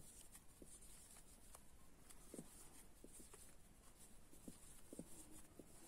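Near silence with faint, scattered soft ticks and rustles from a metal crochet hook pulling through yarn as stitches are worked.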